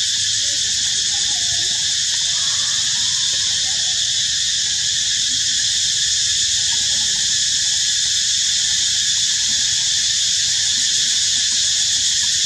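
Steady, high-pitched chorus of insects in the forest canopy, unchanging in level.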